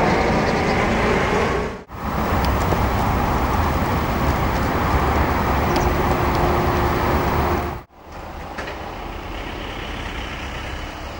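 Steady outdoor vehicle and traffic noise with a strong low rumble. It cuts out abruptly twice, about two and eight seconds in, and is quieter after the second break.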